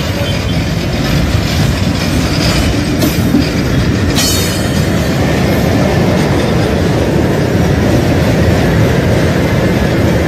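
Diesel locomotive passing at close range, its engine running with a loud, steady rumble and the wheels rolling on the rails, with a few brief sharper noises about three and four seconds in.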